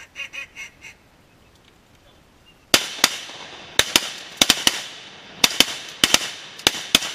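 A short run of duck quacks, then, a little under three seconds in, a rapid volley of about a dozen shotgun blasts from several hunters firing together, each shot ringing out over the marsh.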